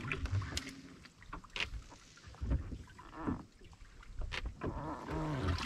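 Water sloshing, with scattered knocks and clicks, as a hand reaches down into a bass boat's livewell to pull out culled fish.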